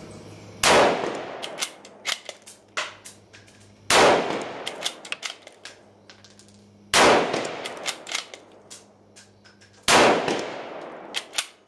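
Four shots from a Ruger Gunsite Scout bolt-action rifle in .308, about three seconds apart, each trailing off in a long echo. Between shots come smaller sharp clicks from the bolt being worked.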